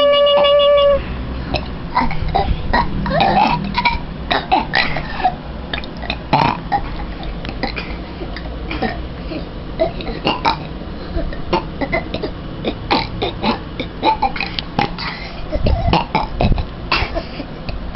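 Children burping over and over, one short belch after another at an uneven pace.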